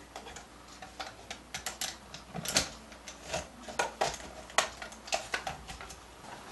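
Irregular small clicks and knocks of a Sony clock radio's plastic case being handled and turned over, then pried at with a small tool to open it.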